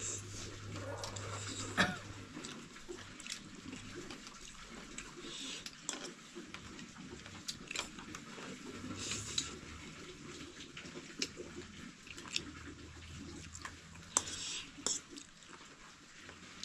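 Quiet mealtime eating of noodle soup: scattered light clicks of a spoon against a bowl and a few short slurps, over a low steady hum.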